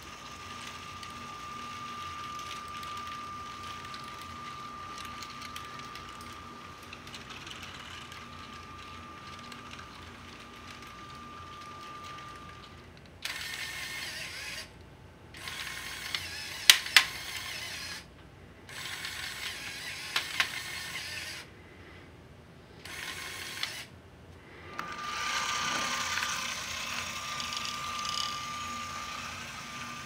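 Lego monorail train's motor running along its track with a steady high whine. Midway the gears and rack of the Lego 3-way switch point turn in several short runs, with a few sharp clicks, and then the monorail's whine returns.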